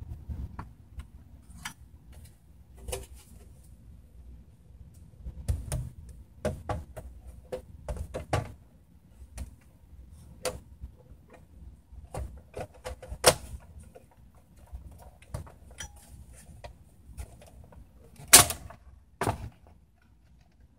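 Handling noise: irregular sharp clicks and light knocks, as of hard parts being moved and set down, with a louder knock about eighteen seconds in.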